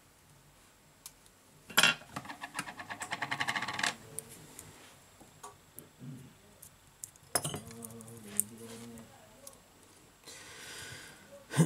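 Kapton tape being pulled off its roll, with a fast crackling run of ticks about two seconds in that grows louder over two seconds. A shorter tear of tape follows a little past seven seconds, then small clicks of fingers handling the phone's parts.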